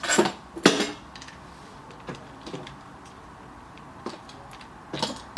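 Handling clicks and scrapes as a camera is fitted onto a tripod: two louder scrapes at the start, a few light clicks, and another scrape near the end.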